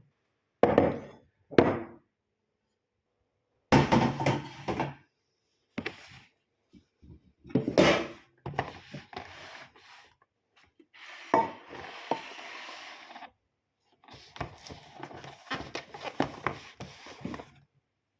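Kitchen handling sounds in short bursts: knocks and clatter of pots, utensils and other objects being set down and moved about, with dead silence between the bursts.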